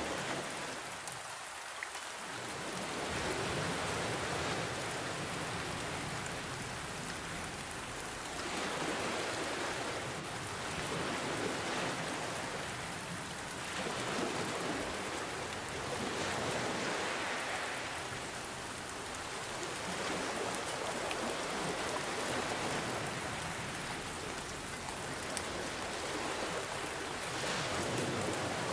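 Steady rain falling with ocean waves; the sound swells and eases in slow surges about every four to five seconds as the waves break and draw back.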